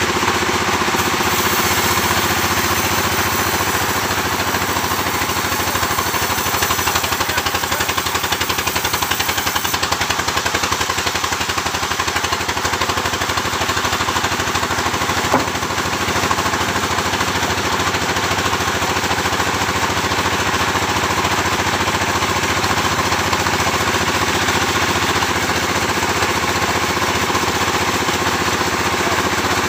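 Sawmill machinery running steadily, an engine with a fast, even pulsing beat. A single sharp click about halfway through.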